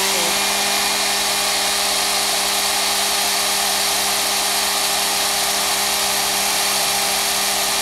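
Handheld hair dryer running steadily close to the microphone: a loud, even rush of air over a steady motor hum.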